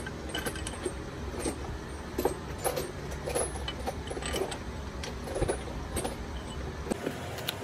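Light metallic clicks and knocks, as of hand tools and parts being handled in engine repair work, over a steady low hum that stops about seven seconds in.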